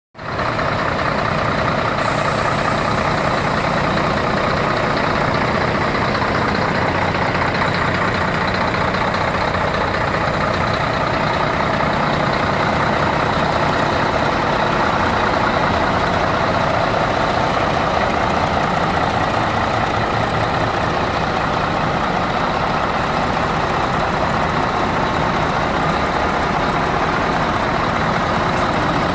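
Diesel engines of several parked Scania trucks, one of them a V8, idling steadily with no revving.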